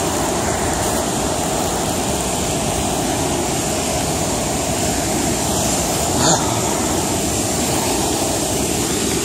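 Steady rush of a fast river's whitewater rapids, with one short knock about six seconds in.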